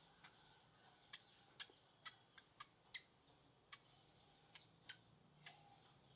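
Faint, irregular little clicks, about a dozen in six seconds: a baby squirrel suckling milk from a cotton swab.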